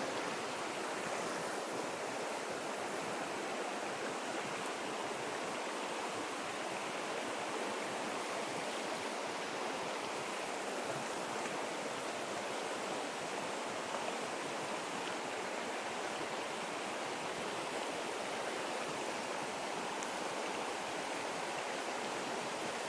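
Small mountain stream rushing over rocks: a steady water noise with no change.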